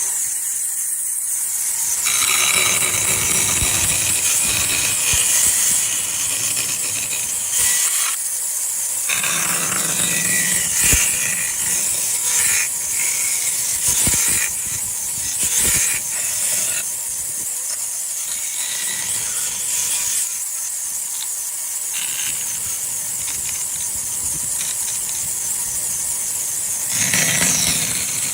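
Woodworking power tool cutting wood: a steady loud hiss with rasping and a few short knocks.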